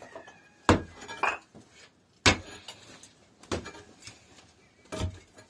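About six sharp knocks and clinks of hard objects being handled, spaced irregularly with short quiet gaps between them.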